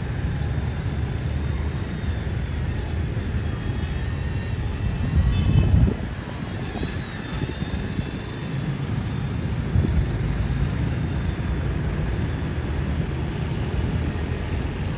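Wind buffeting the microphone, a low rumble that swells about five to six seconds in and again near ten seconds. A faint whine from the small electric rotor motors of a C186 Pro RC helicopter in flight sits above it.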